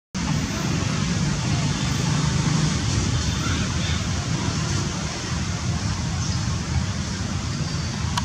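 Steady outdoor background noise: a low rumble with an even hiss above it, and no distinct events.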